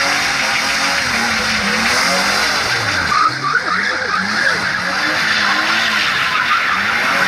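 BMW E34 535i's M30B35 straight-six revving up and down while the car spins donuts, its rear tyres spinning and squealing against the asphalt.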